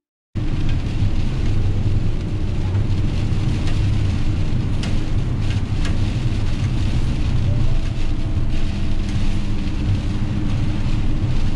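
Steady engine and road noise inside the cab of a Ram van driving on a wet road, with a few faint clicks about five to six seconds in.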